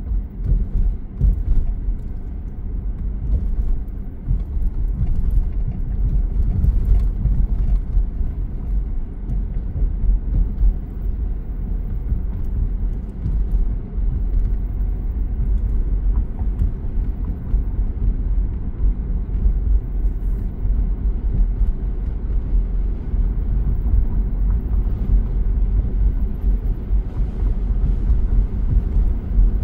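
Vehicle driving along the road: a steady low rumble of engine and road noise.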